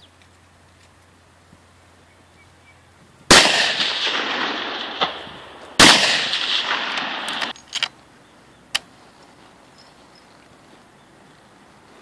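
Two rifle shots about two and a half seconds apart, each followed by a long fading echo, then a few light clicks.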